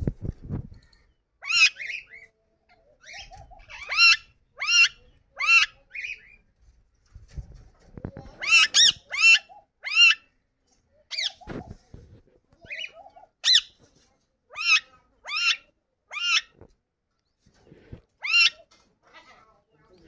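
Yellow Indian ringneck parakeet giving short, harsh calls, repeated in quick runs of two to four with pauses between runs. A few low knocks come between them.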